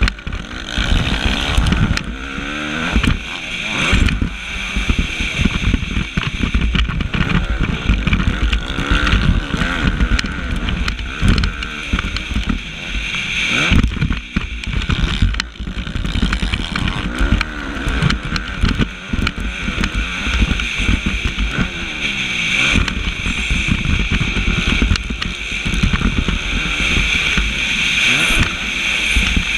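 Suzuki motocross bike engine revving up and down over and over at race pace, with frequent short knocks.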